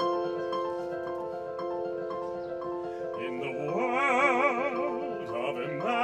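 Opening of an opera duet: a sustained instrumental accompaniment of held chords with a repeated higher note. About three seconds in, a singer enters on a long, held note with wide operatic vibrato.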